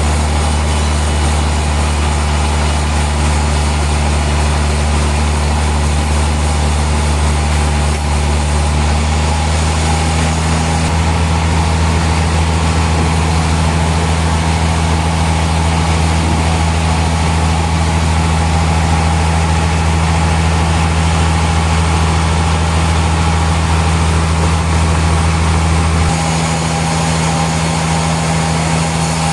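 Sawmill machinery running: a loud, steady low hum and drone with an even mechanical noise over it. The tone shifts slightly about a third of the way in and again near the end.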